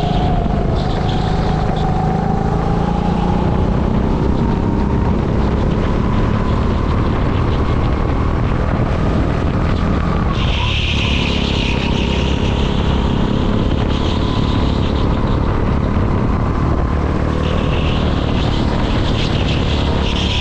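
Racing kart's engine running hard, heard onboard; its pitch climbs slowly for about ten seconds, dips briefly as the throttle is lifted about halfway through, then pulls steadily again.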